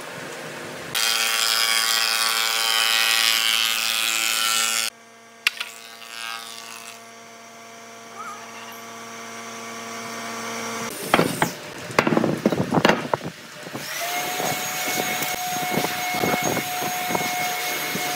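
A wood planer running and cutting a board: a loud rush of cutting noise for about four seconds, then the machine running more quietly. Wood knocks and clatters about two-thirds of the way through, followed by a steady machine hum with scattered ticks.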